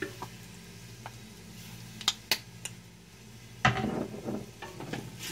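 A metal utensil clinks and scrapes against a frying pan as ground beef is stirred, over a steady low hum. A few sharp clinks come about two seconds in, then louder scraping and clattering near the end.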